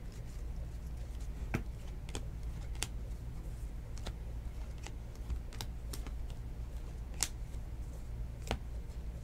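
Trading cards being flipped one by one through a hand-held stack, their edges snapping and clicking in an irregular run of sharp ticks, about one or two a second, over a steady low hum.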